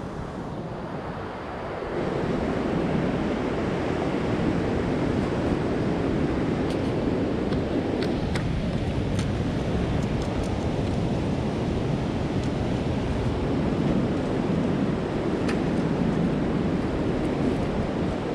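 Rough sea surf breaking and washing up a sand-and-shingle beach in a steady rushing noise that grows louder about two seconds in. A few faint ticks come through the rush.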